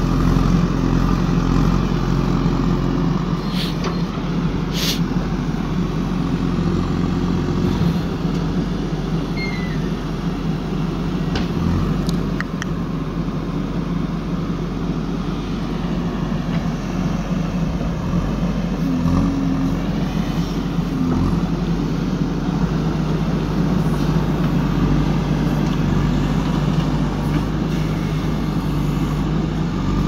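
JCB 3DX backhoe loader's diesel engine running steadily under load as the backhoe arm digs soil, with a few short knocks.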